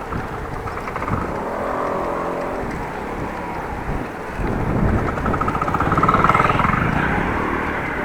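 Motor vehicles passing close by, their engine pitch rising and falling, with wind buffeting the microphone. The loudest pass comes about six seconds in.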